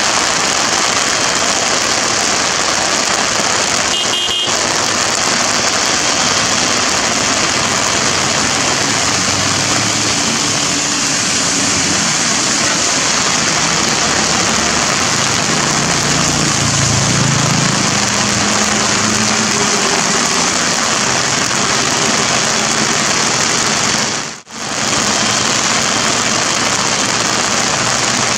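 Twin-engine wide-body jet airliner taxiing in heavy rain: a steady hiss of jet engine noise and rain. A low rumble swells and falls away about midway, and the sound drops out briefly near the end.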